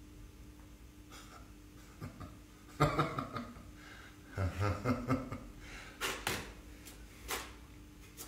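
Small sounds from a man at a desk between lines: breaths and short vocal noises, with sharp rustles and taps of paper being handled, the loudest coming suddenly about three seconds in.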